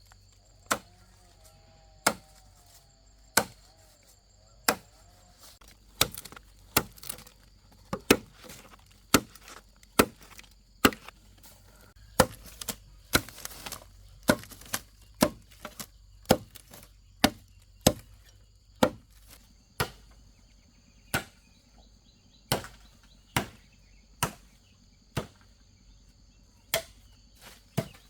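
Repeated sharp chopping strikes, about one a second, with a steady high insect drone behind them.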